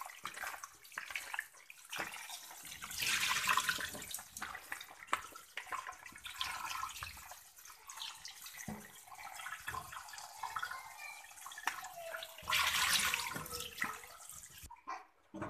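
Kitchen tap running into a bowl of boiled chicken feet as they are rinsed and turned by hand, with water splashing and small clicks of the feet against the bowl. The splashing grows louder twice, about three seconds in and near the end.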